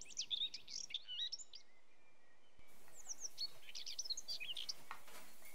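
Small birds chirping, many short high calls in quick runs, with a lull in the middle, over a faint steady background hiss.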